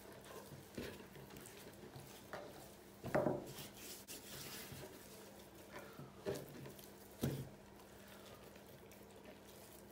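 Hands rubbing salt into and turning a whole raw chicken on a wooden cutting board, giving a handful of short, faint handling sounds, the loudest about three seconds in. A faint steady hum runs underneath.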